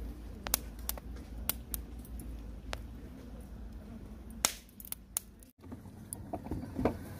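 A charcoal fire in a metal fire box crackling, with irregular sharp pops and snaps over a low steady rumble. There is a brief dropout partway through, and the crackling comes more densely after it.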